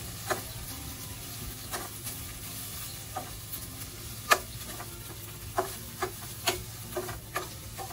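Garlic, onion and ginger sizzling in hot oil in a stainless steel pan while a metal spatula stirs them, clinking and scraping against the pan about ten times at an uneven pace. The loudest clink comes a little after four seconds in.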